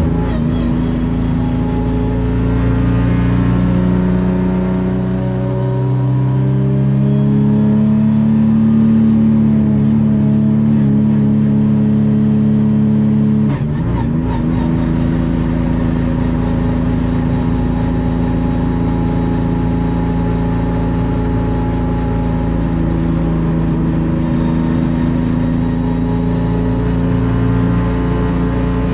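Sprint Race car's V6 engine heard from inside the cockpit, running hard. Its pitch climbs over the first several seconds and holds high, drops suddenly with a brief click about halfway through, then runs steady for the rest.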